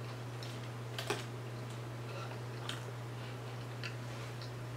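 Sparse crisp clicks and crunches of someone eating fried seafood, chewing and handling the battered pieces, over a steady low hum.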